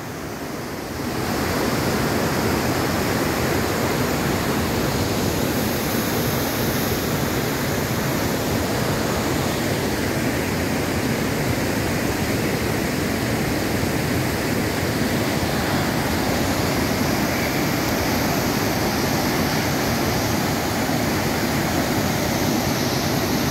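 Whitewater rapids of the Urubamba River, a steady rushing roar of fast, churning water that builds up about a second in and holds level.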